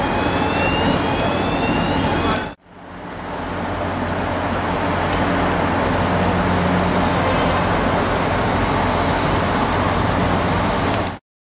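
Steady outdoor city noise with a low engine rumble beside a docked ferry and two short rising whines near the start. About two and a half seconds in the sound cuts out abruptly and resumes as steady traffic ambience.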